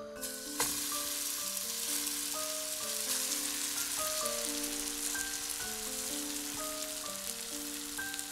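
A wet grated cauliflower, carrot and egg mixture sizzling as it lands in hot frying oil. The sizzle starts suddenly and then runs on steadily, with a single knock about half a second in.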